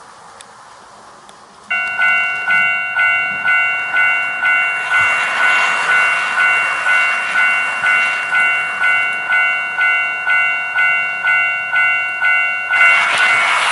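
Model railway level-crossing warning signal sounding its electronic bell, a ding about twice a second that starts about two seconds in. A model train's wheels rumble along the track under it, growing louder near the end.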